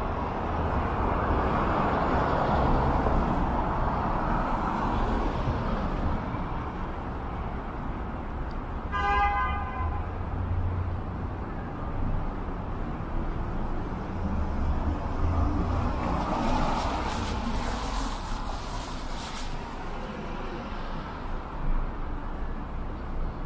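City street traffic with vehicles passing by, and one brief car-horn toot about nine seconds in.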